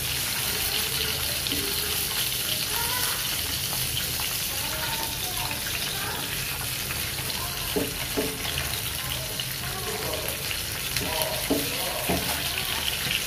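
Pieces of pomfret frying in hot oil in a pan, a steady sizzle. A few short knocks come in the second half.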